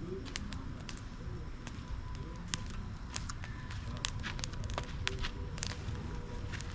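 Firewood burning and crackling, with irregular sharp snaps and pops.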